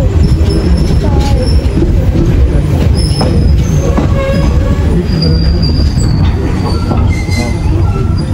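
Passenger train running at speed, heard from inside the coach: a loud, steady rumble of wheels on rails and the rattling carriage, with brief thin high squeals from the wheels now and then.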